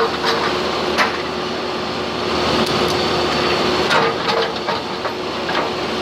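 John Deere 310K backhoe's diesel engine running steadily under load, with several sharp cracks and knocks spread through it as the tree is worked out of the ground.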